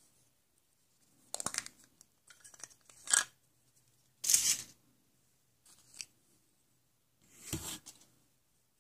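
Packaging being torn open by hand, in about five short rips and crinkles with pauses between.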